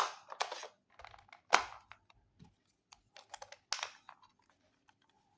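Clicks, taps and short rattles of a portable cassette Walkman's plastic body being handled as a battery is fitted into its battery compartment, with the sharpest clicks at the start, about a second and a half in, and near the end.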